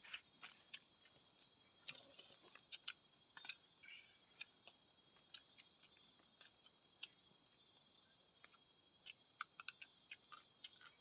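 Steady chorus of crickets and other insects in the forest, a continuous high buzz, with scattered small clicks and taps through it.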